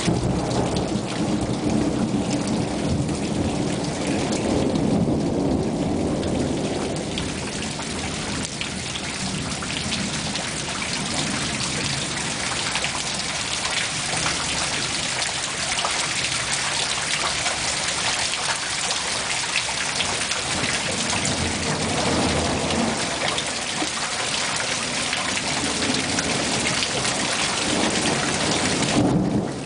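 Heavy thunderstorm rain falling steadily, with a long low rumble of thunder through the first several seconds and shorter rumbles later on.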